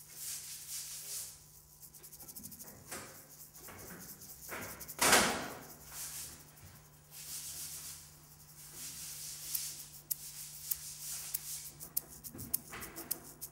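Uneven rubbing and scraping strokes of a painting tool worked against a canvas on the wall, with one louder stroke about five seconds in and a run of quick light ticks near the end, over a faint steady hum.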